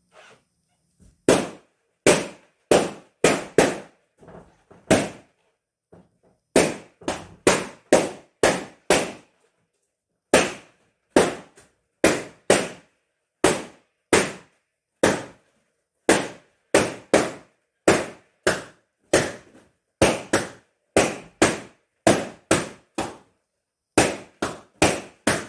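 Latex balloons being popped one after another: about forty sharp bangs, often in quick runs of two to four, each with a brief echo.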